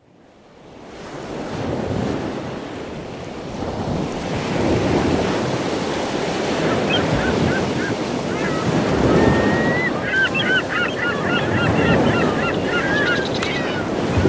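Ocean waves washing on a shore, fading in from silence over the first couple of seconds and then holding steady. From about seven seconds in, birds call in short repeated cries, more densely near the end.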